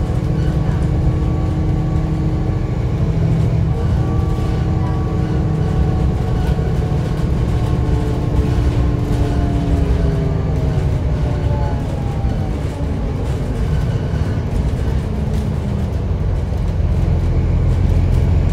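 A sightseeing bus's engine and drivetrain running under way, with a heavy low rumble throughout. A whine falls in pitch from about eight to twelve seconds in as the bus slows.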